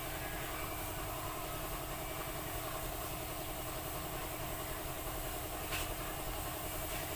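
Steady low mechanical hum of a running machine, with a single faint click about six seconds in.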